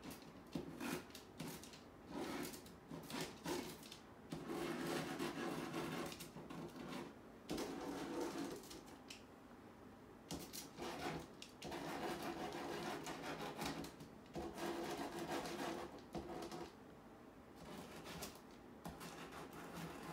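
A painting tool rubbing and scrubbing against a painted wall in repeated strokes. The strokes come in bursts of one to three seconds with short pauses between them.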